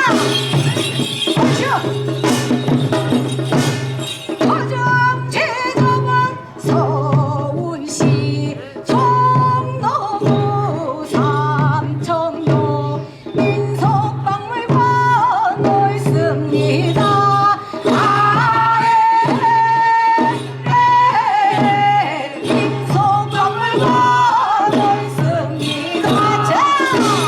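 A Korean folk blessing song (sorigut) sung by a solo voice over samul nori percussion, the drums and gong striking a steady rhythm beneath the wavering vocal line.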